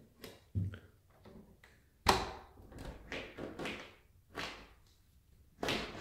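A door being opened: a sharp clunk about two seconds in, the loudest sound, followed by several short scraping, rattling noises and another near the end.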